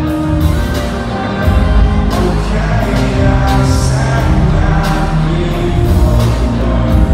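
Live rock band playing loud: drums, bass and electric guitars with sung vocals, heard from among the crowd in a concert hall. The bass and drums come in heavier about a second and a half in.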